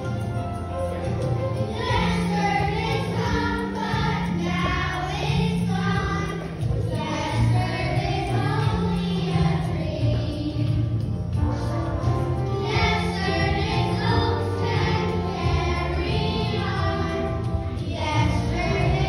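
Children's choir singing over an instrumental accompaniment. The voices come in about two seconds in and pause briefly twice before going on.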